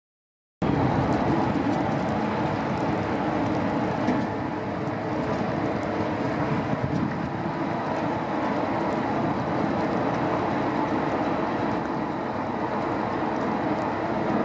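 Steady rushing noise of wind on the microphone and a boat's engine, holding an even level throughout.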